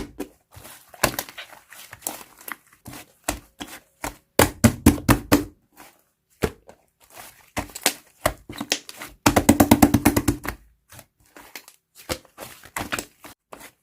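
Slime being squeezed and pressed by hand, making runs of quick clicky pops and squelches, several a second, in bursts with short pauses between them.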